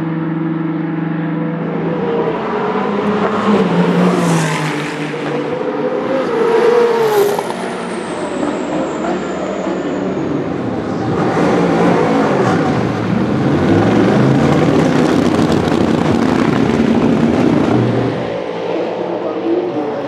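Endurance race cars passing at speed, their engine notes sweeping in pitch as they go by, with a high whine falling in pitch about a third of the way in. A dense spell of several cars follows in the second half.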